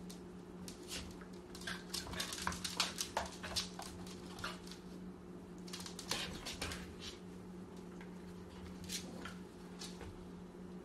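A corgi puppy's claws clicking and scrabbling on a laminate floor in quick flurries, busiest in the first few seconds and again about six seconds in, over a steady low hum.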